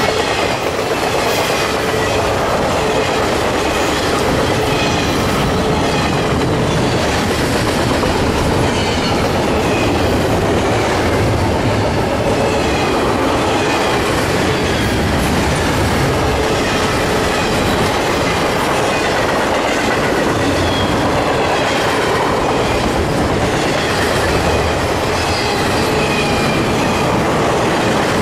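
Double-stack intermodal container freight train passing at close range: the steady, loud rolling noise of its car wheels on the rails.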